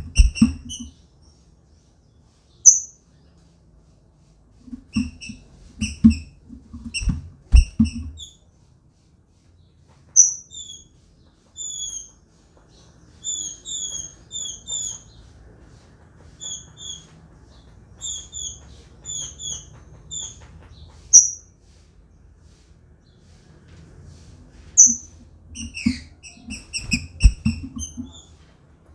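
Female green-winged saltator (trinca-ferro) calling: short, high chipping notes, often in quick pairs and runs, with a few louder single calls. Low knocks from the wooden cage come in clusters about five seconds in and again near the end.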